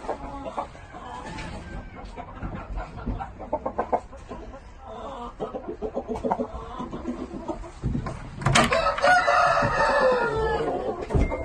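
Chickens clucking in short scattered bursts, then a Shamo rooster crows once, loudly, for about two seconds near the end, the call dropping in pitch as it finishes.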